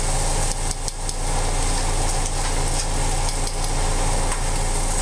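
Vegetables frying in a skillet with a steady sizzle over a constant low hum, with a few light clicks of metal tongs as they are stirred.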